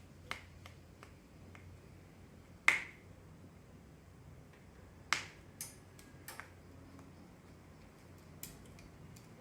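Scattered sharp clicks and taps of small tools and plastic parts during the disassembly of a smartphone's back housing. There are about eight clicks, the loudest about three seconds in and a quick cluster a little past the middle.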